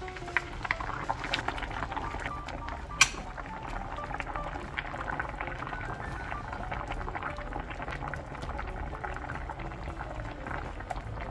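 Mushroom and dumpling hotpot broth boiling in the pot, a steady dense crackle of small pops, with one sharp click about three seconds in.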